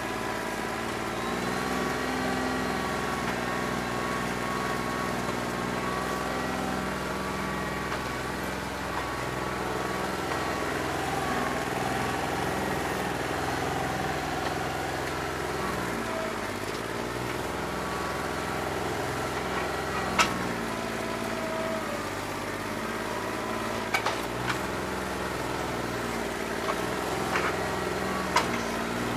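New Holland 1320 compact tractor's three-cylinder diesel engine running with a bad injector, firing on roughly two and a half cylinders. Its speed dips and recovers a couple of times. A few sharp clicks or knocks sound in the second half.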